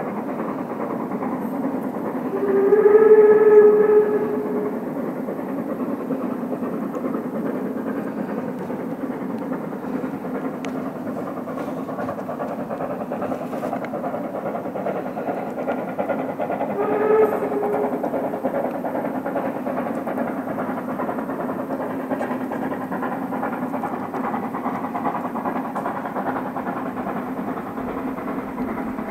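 Harz narrow-gauge steam train running uphill, heard from on board as a steady rumble. Its whistle gives one long blast about three seconds in and a short one around seventeen seconds in.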